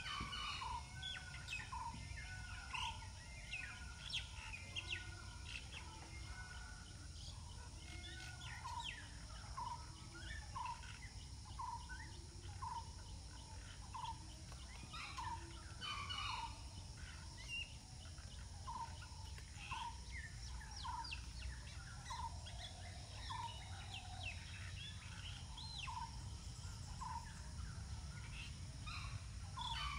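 Birds calling in the trees: one repeats a short note over and over, about one and a half times a second, while others add scattered higher chirps over a low steady rumble.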